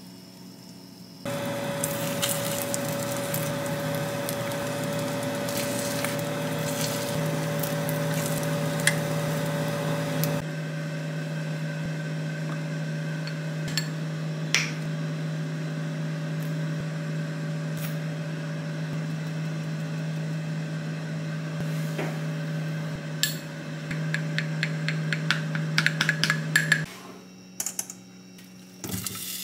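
Kitchen utensils clicking and scraping against pans and a glass bowl over a steady mechanical hum. A quick run of clinks comes near the end, then the hum stops.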